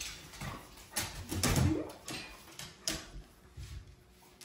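A pet dog being riled up: scuffling and movement with several sharp clicks and knocks, about a second in, again half a second later, and near three seconds.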